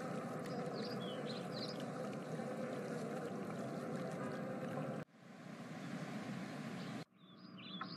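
Faint ambience of flowing water with a few high bird chirps. The sound cuts off abruptly about five seconds in, is followed by a quieter hiss and a brief silence, and then more bird chirps come in near the end.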